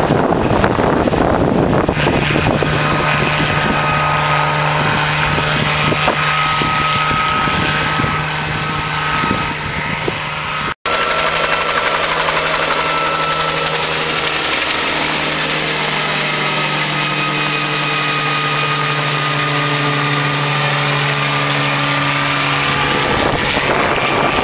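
Bell 47 helicopter flying low overhead, its piston engine and rotor running steadily, the pitch slowly sweeping as it passes. The sound breaks off for an instant about eleven seconds in.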